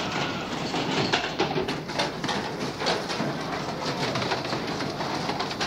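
Busy arcade din around a horse-race game: a crowd's murmur with many rapid clicks and clacks from the game stations.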